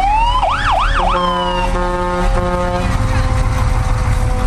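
Fire engine siren rising, then sweeping quickly up and down three times, followed by three horn blasts, over the low rumble of the passing fire trucks' engines.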